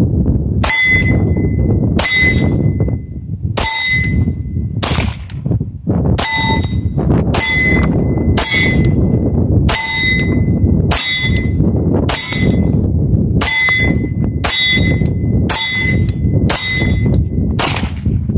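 SIG P226 Legion pistol fired about fifteen times at a steady pace of roughly one shot a second, most shots followed by the ringing clang of a steel plate target being hit. Wind rumbles on the microphone underneath.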